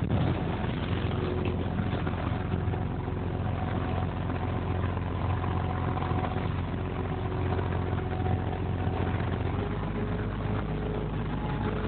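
Boat engine running steadily under way, heard from inside the wheelhouse cabin, with the wash of choppy water against the hull.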